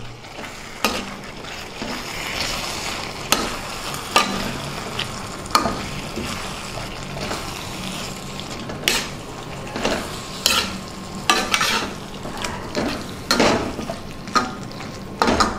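Metal spatula scraping and knocking against a metal kadai as chicken curry with grated raw mango is stirred, in irregular sharp clinks over a steady frying sizzle.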